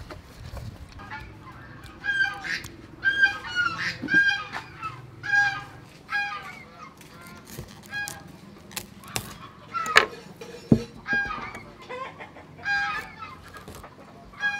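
Chickens clucking over and over in short, pitched calls. A couple of sharp snaps about ten seconds in, as cauliflower is broken apart by hand.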